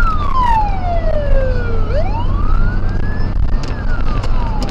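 Police car siren wailing, sliding slowly down and up in pitch about every two seconds, over the steady low rumble of the car's engine and tyres at highway speed.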